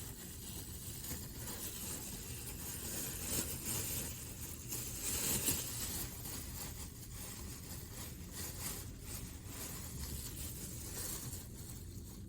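Takeout food containers and packaging being handled on a desk: rustling and scraping with scattered light clicks and knocks.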